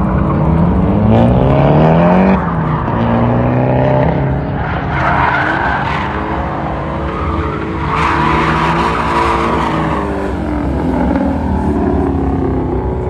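Ford Mustang drifting. The engine revs rise and fall with the throttle, dropping sharply about two seconds in, while the tyres squeal as the car slides, loudest about five seconds in and again from eight to ten seconds.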